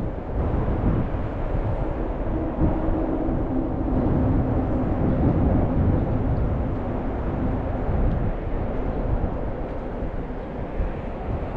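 Strong wind buffeting the microphone in gusts, a heavy, uneven rumble. A faint steady drone, like a distant engine, sits under it from about two seconds in until about seven seconds in.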